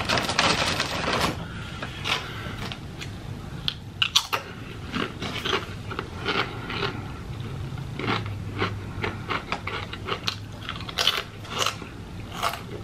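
Crisp tortilla chips being bitten and chewed close to the microphone: sharp crackling crunches about every second, coming closer together near the end. It opens with a second or so of plastic chip-bag crinkling.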